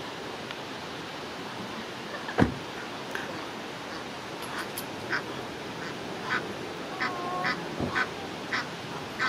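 Egyptian goose goslings peeping, a scatter of short high calls that comes thicker in the second half. A single dull thump about two and a half seconds in is the loudest sound.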